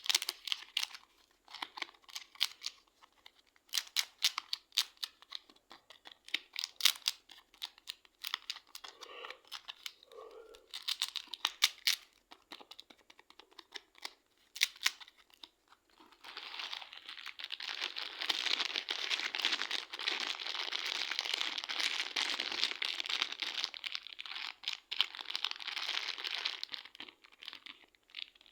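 Slime squeezed and pressed by hand, making sharp sticky clicks and pops. About halfway through it gives way to a dense, continuous crackling.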